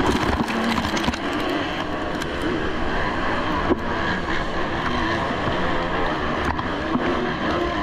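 Several motocross bikes racing together, their engines revving up and down over one another.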